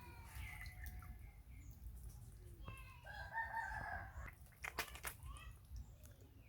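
Animal calls: a falling call at the start, then a held, pitched call lasting about a second near the middle, followed by two sharp knocks.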